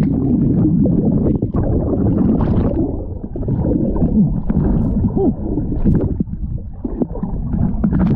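Underwater sound of a camera plunged into a river: a muffled churning rumble of air bubbles, with short gurgling bubble tones that bend up and down in pitch.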